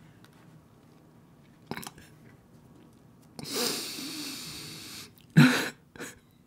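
A man breathing out in a long shaky breath, caught between laughing and crying. About a second later comes one short, loud sob-laugh.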